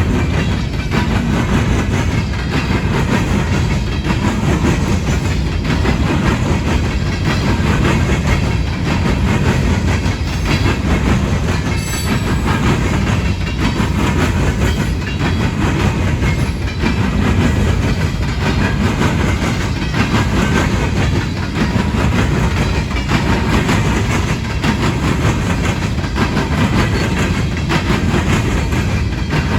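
The hopper cars of a CSX coal train rolling past in a steady, loud, continuous clatter of wheels over rail joints and the crossing diamonds. A short high squeal comes about twelve seconds in.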